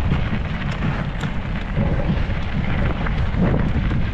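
Wind buffeting a mountain biker's camera microphone as a low, uneven rumble, with scattered clicks and crunches from the bike's tyres on a rocky trail while climbing.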